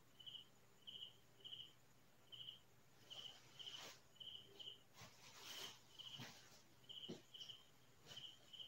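Faint cricket chirping: short, high chirps repeating about one and a half to two times a second, sometimes in pairs. A few faint knocks and rustles come in between.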